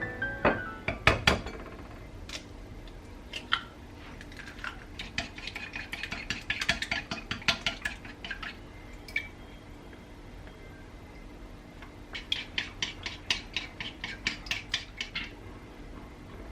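Cutlery clinking against dishes: a few sharp clinks near the start, then two quick runs of rapid clinks, one through the middle and one near the end, like a utensil working in a bowl.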